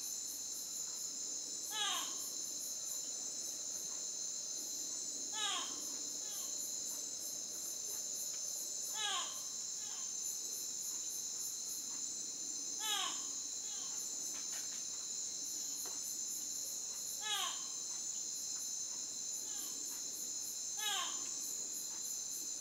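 Steady chorus of crickets and other insects, with a call of quick falling notes repeating about every three and a half seconds, six times.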